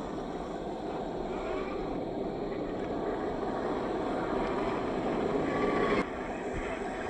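GMADE GS01 Power Wagon RC crawler, with its 540 35T brushed motor and geared drivetrain, driving over loose gravel, with gravel crunching under its tyres. It gets louder as the truck comes closer, then drops off suddenly about six seconds in.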